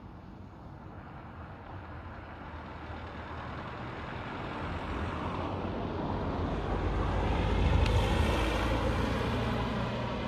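A road vehicle driving past: engine and tyre noise building gradually, loudest about eight seconds in, then starting to fade as it moves away.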